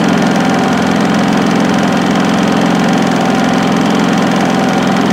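Westinghouse iGen4500 inverter generator running steadily with no load: an even engine drone with a thin constant whine above it.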